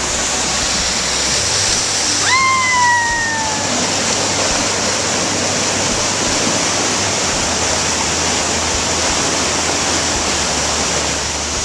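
Waterfall: a steady, loud rush of falling water. About two seconds in, a single high note slides gently downward for over a second.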